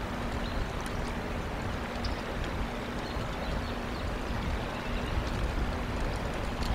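Steady outdoor background noise: an even rushing hiss with a faint low hum under it and a few faint, short, high ticks.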